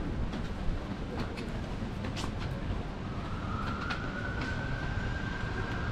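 Outdoor city ambience: a steady low rumble with scattered light clicks and knocks. From about halfway a faint high tone comes in, rising slightly and then holding, like a distant siren.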